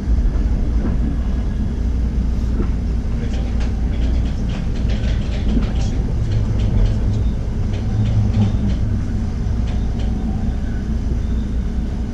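Electric commuter train running, heard from inside the passenger car: a steady low rumble of wheels on rails, with a cluster of quick clicks in the middle.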